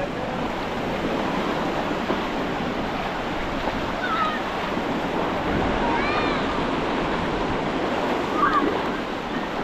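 Ocean surf washing steadily onto a sandy beach, a continuous hiss of breaking waves. A few short calls rise faintly over it about four, six and eight seconds in.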